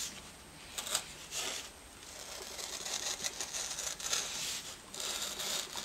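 Pen scratching over paper laid on a Styrofoam sheet, tracing a drawing line by line to press it into the foam, in short irregular strokes.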